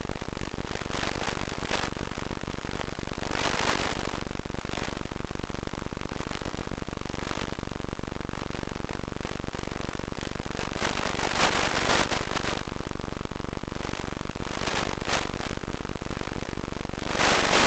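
Static from an analog 1.3 GHz FPV video link: a steady buzzing hiss, broken by several louder bursts of hiss as the weak signal breaks up.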